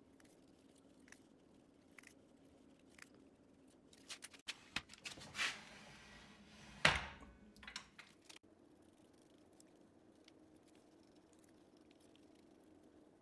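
Scattered light clicks and taps, with a cluster of louder knocks between about four and eight seconds in, the loudest just before seven seconds: hands working a metal jaw-plate jig on a wood lathe as a glued segmented ring is brought against the bowl stack.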